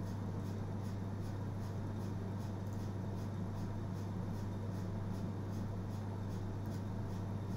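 Steady low electrical hum with background hiss, and faint, even ticking about three times a second.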